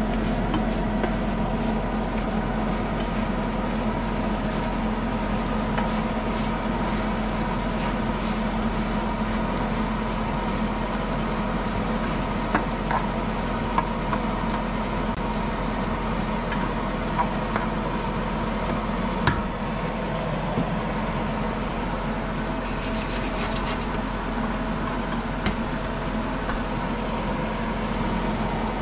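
Steady mechanical hum, like a fan or motor running, with a few faint clicks and knocks.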